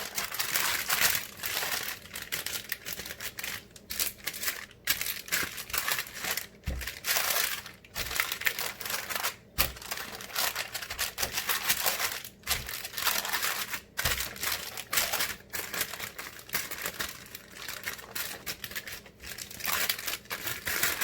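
Hands pressing and stretching pizza dough in an oiled pan: a continuous crackly, crinkling noise with short pauses and a few dull thumps.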